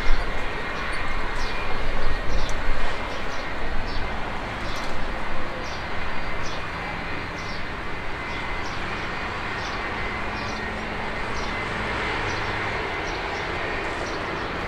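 Boeing 757 freighter's jet engines running at taxi power: a steady roar with a faint whine, gusting in the first half. A bird chirps repeatedly over it.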